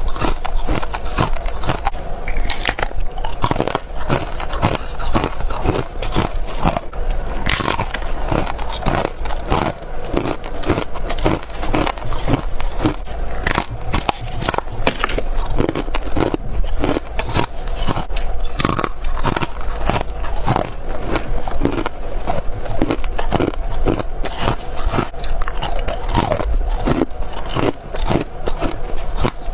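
A person biting and chewing crisp frost scraped from a freezer or humidifier, close to the microphone: a dense, steady run of crunches, several a second.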